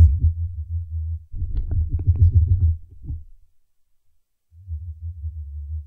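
Vibrational signals of southern green stink bugs carried through the plant stem and heard as sound: low humming pulses. A steady hum for about a second, a rougher, richer pulse train from about a second and a half to three seconds in, a pause, then another steady hum near the end.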